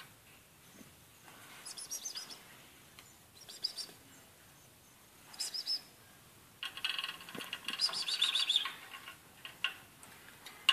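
Female European greenfinch calling: three short bursts of high chirps, then a longer run of fast chirps about seven seconds in, the loudest part, as the bird acts aggressively.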